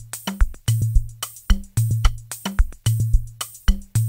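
Unmixed programmed drum loop playing back: a low kick with a ringing bass tail about once a second, with sharp percussion hits between, before any mixing, compression or saturation.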